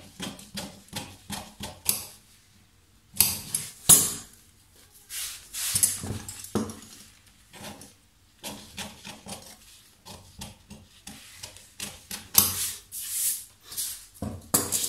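Scissors snipping through paper pattern pieces in quick runs of short cuts, with paper rustling and sliding as the pieces are handled. A few louder paper crackles come about three and four seconds in.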